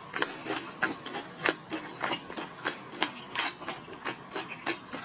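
Shrimp or lobster shell being peeled and cracked by hand, a quick, uneven run of small crackling snaps and rubs.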